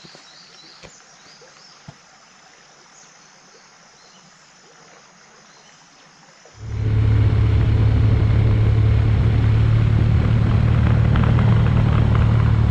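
Quiet jungle ambience with faint insect chirping and a couple of small clicks, then about six and a half seconds in a sudden switch to the loud, steady running of a Suzuki GSX250 Thunder's single-cylinder engine at an even cruise while riding.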